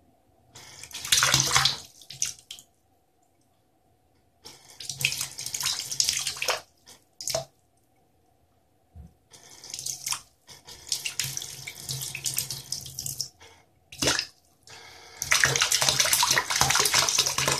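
Mini 12 V DC brushless submersible water pump running at full 12 V in a filled sink, its jet of water spraying up and splashing back down. The splashing comes in several bursts with short silent gaps between them, and a faint low hum lies under the louder stretches.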